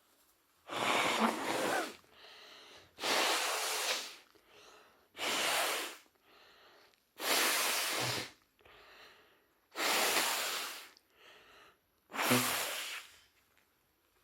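A woman with a head cold sneezing six times in a row, about two seconds apart, with a sharp breath drawn in between each sneeze.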